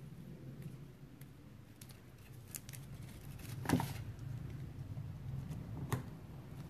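Faint rustling and light clicks of paper pieces and glue dots being handled and pressed onto a paper gift tag, with a louder crinkle about four seconds in and a sharp click near the end, over a low steady hum.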